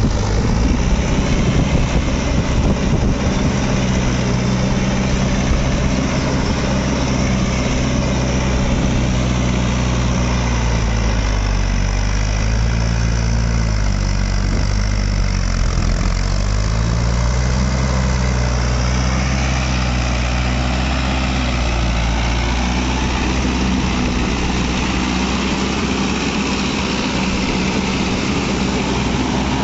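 Mahindra Yuvo 575 tractor's four-cylinder diesel engine running steadily; its speed dips for a few seconds about halfway through, then picks back up.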